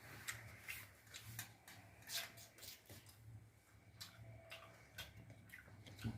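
Close-up eating sounds: chewing with irregular soft crunches and wet mouth clicks, several a second, over a faint steady low hum.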